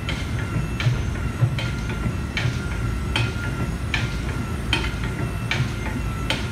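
Steady low mechanical rumble with a regular clack a little more than once a second and a faint steady whine.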